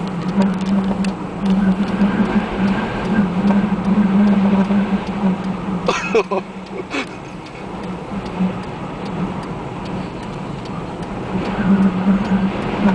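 Strong wind buffeting a car, heard from inside the cabin, with wind-blown snow ticking against the windshield and a steady low hum. Two sharper knocks come about six and seven seconds in.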